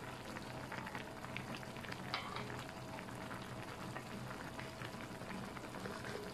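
Kimchi nabe hotpot broth boiling in the pot, a steady bubbling with scattered small pops.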